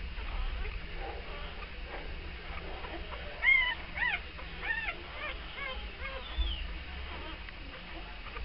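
A week-old beagle puppy whimpering while nursing: a run of about eight short, high squeaks, each rising and falling in pitch, starting about three seconds in and fading over a couple of seconds.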